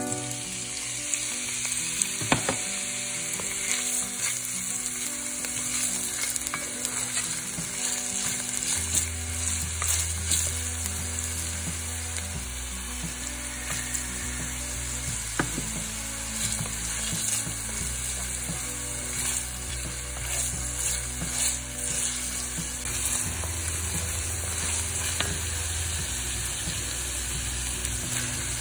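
Diced onion sizzling as it sautés in olive oil in a pan, a steady high hiss, with a wooden spoon stirring and scraping in short clicks now and then.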